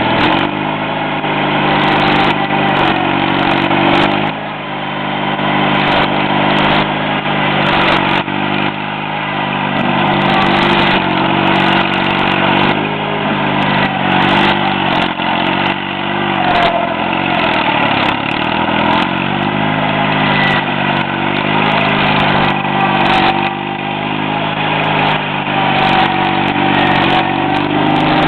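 John Deere Model 60 skid steer loader's engine running, its speed repeatedly dipping and picking back up, with scattered clanks and knocks.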